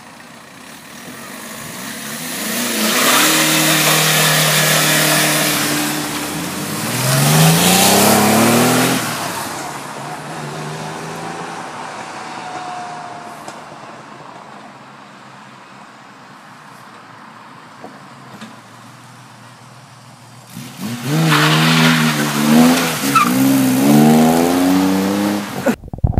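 Cars accelerating past one at a time as they drive away from a car show. The first builds from about two seconds in, its engine note climbing steeply as it passes. After a quieter stretch, a second car passes near the end, its revs rising in steps through the gears.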